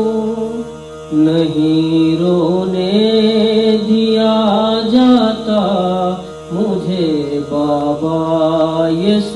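A male voice singing a slow, drawn-out noha (Shia lament) melody without clear words, with long gliding notes over a steady background drone, and a short breath pause about a second in.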